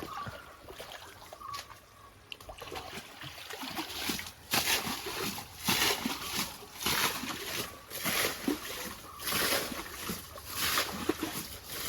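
Splashing and sloshing in shallow muddy water as fish are worked for by hand, quiet at first, then a splash about once a second from about four seconds in.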